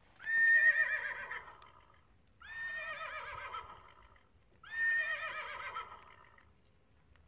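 Recorded horse whinny played from a children's sound book's button, three times over, each whinny about two seconds long and the first the loudest.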